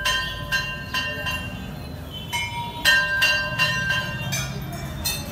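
Temple bells being rung, about a dozen irregular clanging strikes, each ringing on for a moment, over a low background murmur.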